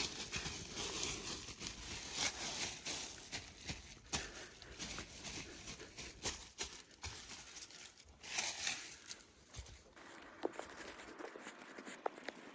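Hands scraping loose soil and dry fallen leaves across woodland ground: an irregular rustling and crackling. From about ten seconds in it thins to scattered small crackles.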